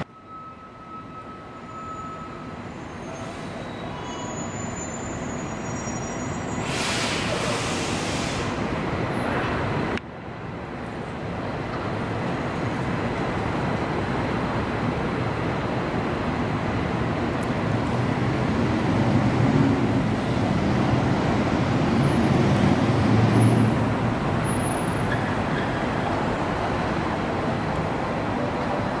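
Steady hiss and rumble of city traffic, building gradually, with an abrupt cut about ten seconds in.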